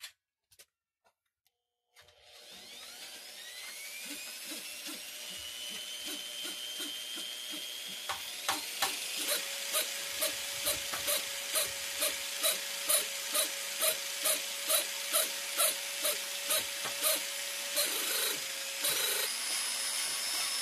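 Electric drill spinning a motorcycle valve on its seat with grinding compound to lap it, so the leaking valve seals; the drill's whine rises as it spins up about two seconds in. From about eight seconds a regular knock about twice a second runs along with it.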